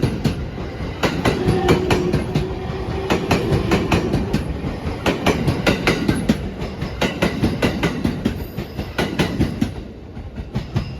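A JR East E231 series 1000-subseries electric train runs past, its wheels clattering in rapid clacks over rail joints over a steady rumble. The clatter thins out and the sound drops away about ten seconds in as the last cars go by.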